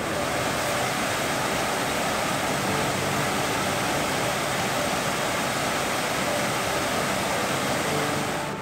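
Small creek waterfall: water rushing steadily over rocks.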